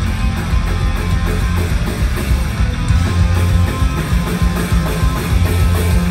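Live heavy rock band playing loud with no vocals: electric guitars, bass guitar and drums.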